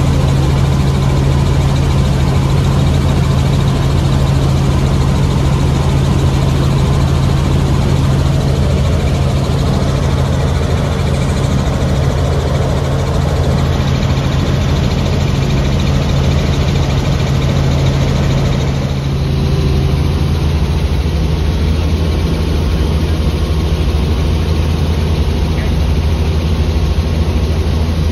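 Helicopter cabin noise in flight: the steady drone of the rotor and engine with a strong low hum over a rushing haze. The hum's balance shifts lower about two-thirds of the way through.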